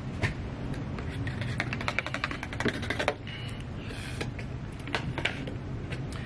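Close-up eating and handling noises: scattered sharp clicks and crackles, with a dense run of quick clicks from about one and a half to three seconds in, over a steady low rumble.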